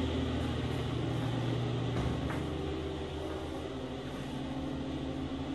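Steady low mechanical hum with a few fixed low tones, growing a little weaker after about two seconds, with two faint clicks.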